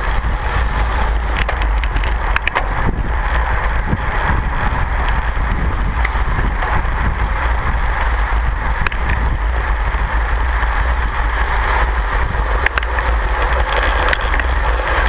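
Wind rushing over the microphone of a camera on a racing bicycle moving at speed in a pack: a steady loud rush with a deep rumble underneath and a few sharp clicks.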